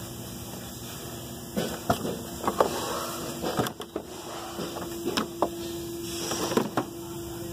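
2013 Toyota Corolla's plastic engine cover being pulled up off its mounts: a scattered series of hard plastic clicks and knocks as it pops free and is handled.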